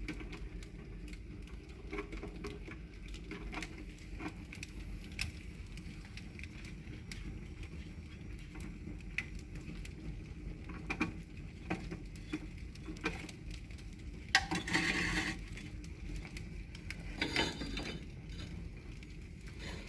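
Wood fire of vine stumps crackling in an open fireplace, with scattered small pops over a low steady hiss. Two louder brief noises stand out about fourteen and seventeen seconds in.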